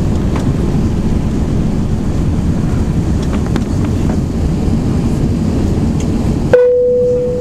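Steady rumble of an Airbus A380's engines and airflow heard inside the cabin during takeoff. Near the end the rumble suddenly drops away and a single cabin chime rings out and fades slowly.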